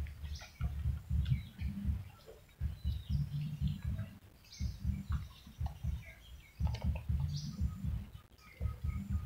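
A litter of puppies nursing from their mother: rapid suckling and smacking in clusters of a second or so, with short high chirps here and there.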